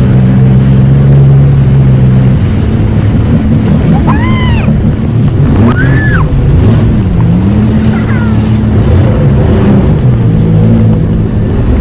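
Jet ski engine running under way with wind and water rushing past, its pitch dipping and rising as the throttle changes. A young girl gives short, high squeals of delight about four, six and eight seconds in.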